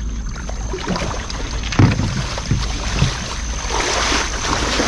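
Water sloshing and water-hyacinth plants rustling as a person wades through a weed-choked pond, with a few splashes or knocks in the first three seconds. Near the end it turns to rustling as they push through tall grass, over a steady low wind rumble on the microphone.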